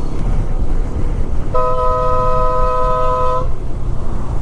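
A motorcycle horn held for about two seconds, starting about a second and a half in. It sounds two steady notes at once over a continuous road rumble, a signal for the traffic ahead to give way.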